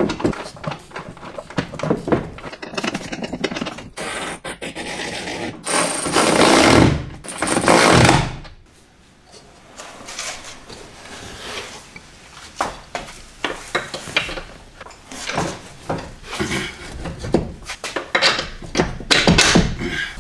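Metal-on-metal clinks and knocks of tools and fasteners while a new rear strut assembly is bolted to a car's hub and its brake line bracket is reattached. Two loud bursts of noise, each about two seconds long, come about four and six seconds in, and dense clicking follows near the end.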